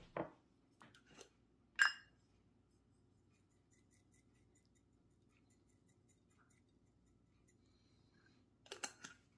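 Small glass jar of sesame seeds clinking as it is handled: a few light clicks and one ringing clink in the first two seconds, then a quick cluster of clicks near the end.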